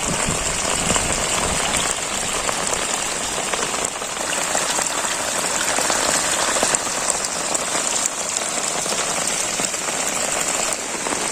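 Rain falling steadily, an even hiss and patter without a break.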